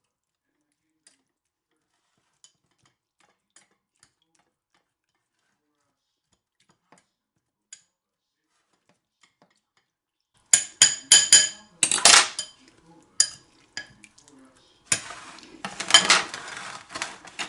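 Metal cutlery knocking and clinking against a dish several times, then scraping across it. This follows a long stretch of near silence with only a few faint ticks.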